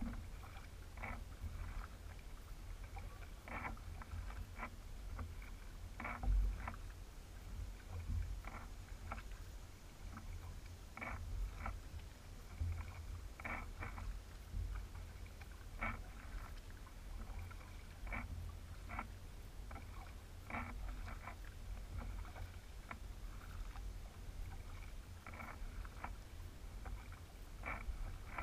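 Kayak paddle strokes on calm water: the double-bladed paddle dips and splashes on alternate sides every second or two, with drips in between, over a steady low rumble.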